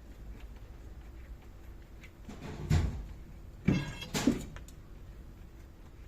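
Three knocks near the middle, about a second and then half a second apart; the second has a short metallic ring.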